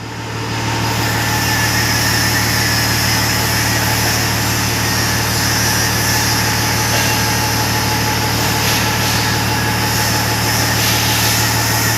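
Tata 1918 BS6 truck's diesel engine idling steadily, loud and close. It swells up during the first second, then holds an even hum.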